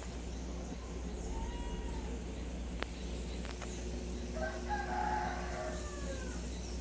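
A drawn-out bird call, about two seconds long, that slopes down in pitch at its end, over a steady low rumble; two sharp clicks come shortly before it.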